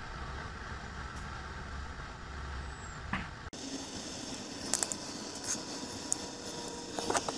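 A steady low rumble and hiss, then, after a sudden change about three and a half seconds in, a wood fire crackling with sharp, scattered pops in a perforated metal fire drum over a steady hiss.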